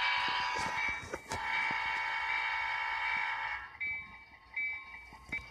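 Model diesel locomotive's built-in sound-effect horn blowing a steady chord. One blast stops about a second in, and a second, longer blast ends a little past the middle. After that there are only fainter clicks.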